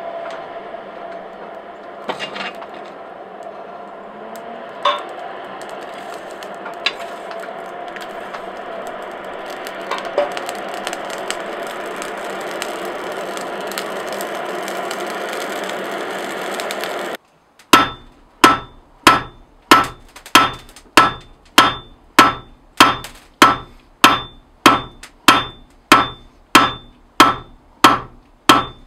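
Steady rush of air blast through a charcoal forge fire, growing slowly louder, with a few sharp crackles. Then a hand hammer strikes a red-hot 6 mm mild steel bar on an anvil, a little under two ringing blows a second.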